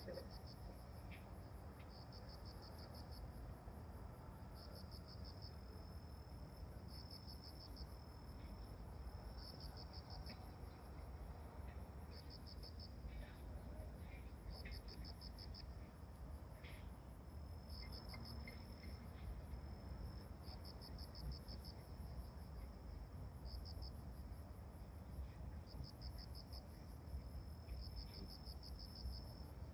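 Insects chirping in pulsed, high trills about a second long, repeating every two seconds or so, over a faint low steady rumble.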